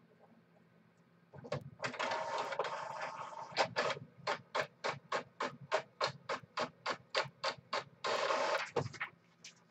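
Desktop printer printing a page: a whir as the paper feeds in, then a run of evenly spaced strokes about four a second, then another short whir near the end as the page is pushed out.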